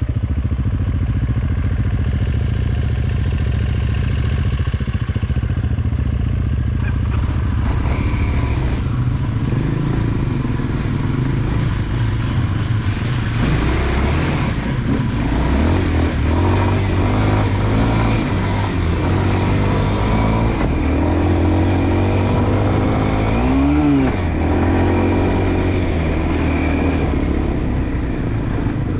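Enduro motorcycle engine running under way. Its pitch steps up and down with throttle and gear changes, with a brief rev near the end.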